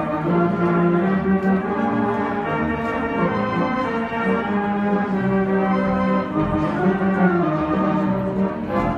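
Robert Morton theatre pipe organ playing a piece in full held chords that change every second or so.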